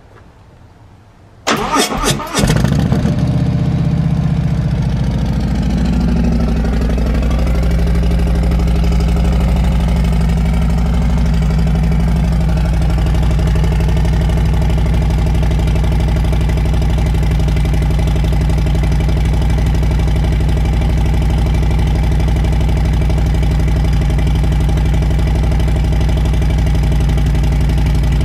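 Cold start of a 2019 Harley-Davidson Road Glide Special's 114 ci Milwaukee-Eight V-twin on its stock cam with a stage-one tune and a Fuel Moto 2-into-1 exhaust. The starter cranks about a second and a half in and the engine catches within a second, runs a wavering high idle for several seconds while cold, then settles into a loud steady idle.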